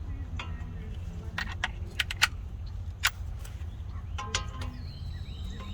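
Metal sockets and tools clinking: several sharp separate metallic clicks as a socket is tried on the caliper bracket bolt. Over a steady low hum, with insects chirping from near the end.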